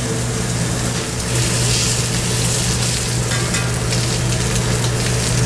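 Beef short ribs sizzling as they brown in hot oil in a pan on medium-high heat, a steady hiss over a low steady hum.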